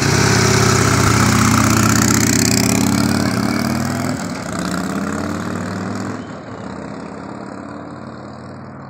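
Harley-Davidson touring motorcycle's V-twin engine pulling away with two riders, its note rising as it accelerates and dropping back twice as it shifts up, then fading as the bike rides off down the street.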